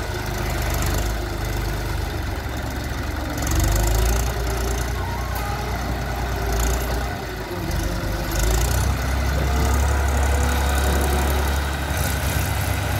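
Diesel tractor engine running while it works a front-end loader. The engine grows louder about four seconds in, dips briefly past the middle, then runs louder again from about nine to twelve seconds.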